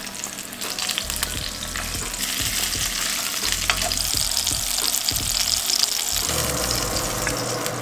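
Barramundi fillets sizzling steadily in hot oil in a frying pan, with many small spattering crackles.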